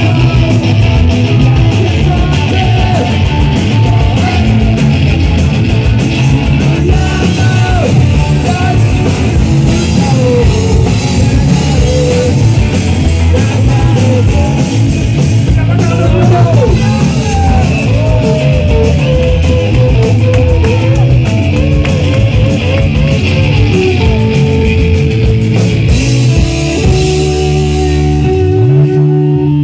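Live rock band playing loud: electric guitars, bass guitar and drum kit, with a lead guitar bending notes. Near the end the drumming stops and held guitar chords ring on.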